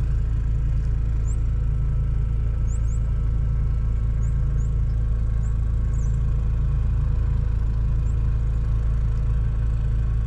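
An engine running steadily at idle, an even low hum that does not change, with a few faint, short high chirps over it.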